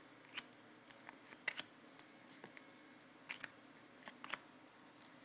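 Stiff Topps Finest trading cards being handled and slid against one another: a scattered run of short, sharp clicks and snaps, some in quick pairs.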